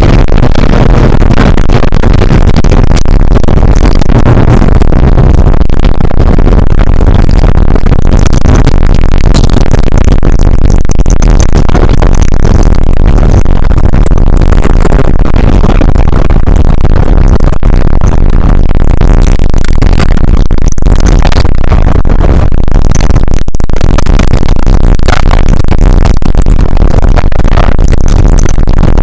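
Harsh, distorted electronic noise music, dense and unbroken at full volume.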